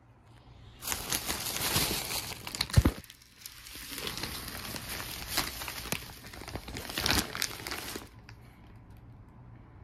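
Thin plastic shopping bag crinkling and rustling as it is handled and a packaged wig is drawn out of it. The crinkling starts about a second in and stops about eight seconds in, with two sharp loud crackles near three and seven seconds.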